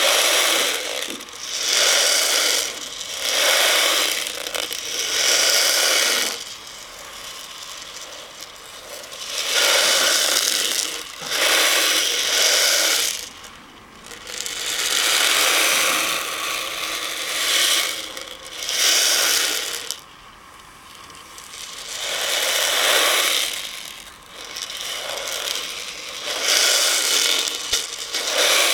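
Dozens of small beads rolling and rattling around a plastic bowl as it is swirled, in about a dozen swishes of one to two seconds each with short pauses between them.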